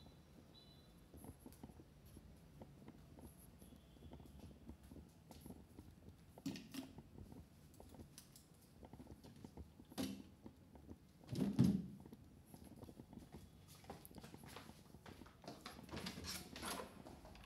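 Faint knocks and thuds over low background noise, the loudest a heavier thud about eleven and a half seconds in.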